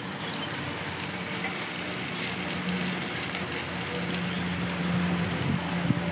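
Glazed chicken wings sizzling on an electric grill, the glaze bubbling underneath: a steady hiss and crackle. A faint, low, steady tone comes in about halfway through.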